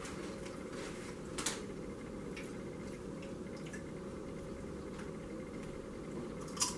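People chewing and crunching Doritos tortilla chips, soft and intermittent, with a sharper crunch about a second and a half in and another near the end, over a steady low room hum.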